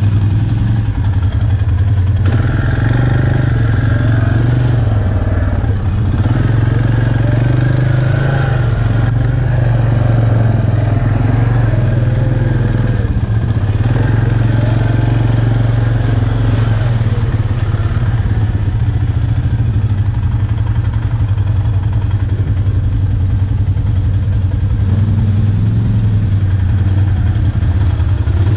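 ATV engines running at low trail speed: a steady low engine note with small rises and falls of the throttle.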